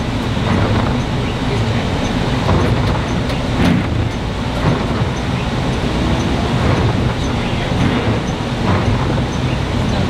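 Steady rumble of a moving vehicle heard from inside the cabin: engine and tyre noise on a snow-covered road.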